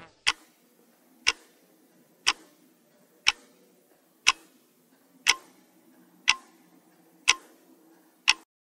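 Clock-tick sound effect for a quiz countdown timer: nine sharp ticks, one a second, counting down the time to answer, over a faint low hum.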